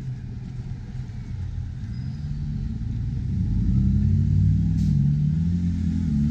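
A motorcycle engine running and growing louder over the last few seconds as it comes closer, its pitch wavering, over a steady rumble of street traffic.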